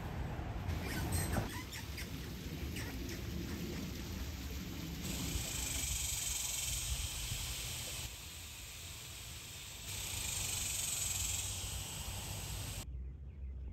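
A steady low rumble with a few light clicks in the first two seconds, then a high steady insect buzz that comes in about five seconds in, fades around eight seconds, returns near ten seconds and cuts off shortly before the end.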